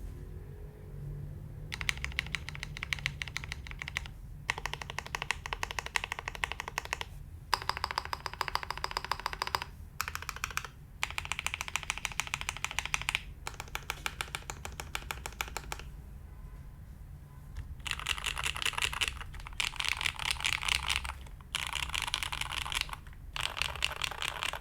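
Custom AV3 mechanical keyboard being typed on quickly. It has lubed, broken-in Hyperglide linear switches (Ultraglides) mounted in a stainless steel plate, with GMK keycaps. The keystrokes come in runs of a few seconds, with short pauses between them.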